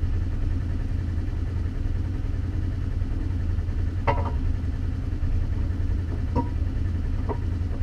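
Off-road vehicle's engine idling steadily, with a sharp metallic clink about four seconds in and two lighter clicks near the end.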